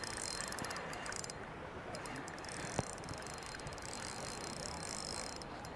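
Fishing reel ticking quietly while a hooked fish is fought on the line, with a single sharp click a little under three seconds in.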